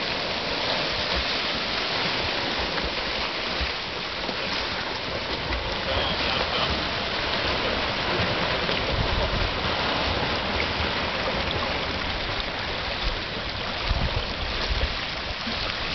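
Sea water splashing and washing at the shoreline as a group of swimmers churn away from a beach start, a steady rush of water with no voices. Low rumbles about nine and fourteen seconds in.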